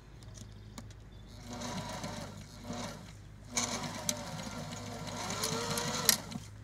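Sewing machine stitching through a folded hem of woven vinyl-mesh floor covering fabric. It runs in two spurts that speed up and slow down, over a steady low hum, and there is a sharp click near the end.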